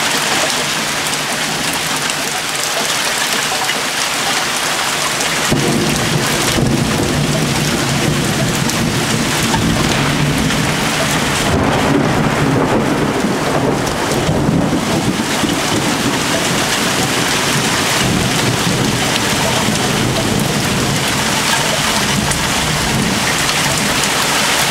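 Heavy rain falling steadily, with a long low rumble of thunder that sets in about five seconds in and slowly fades over the following seconds.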